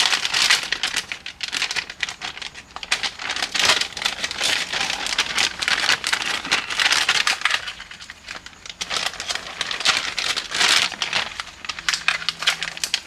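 Clear plastic bag crinkling and rustling as hands dig through it, with a short lull about two thirds of the way through.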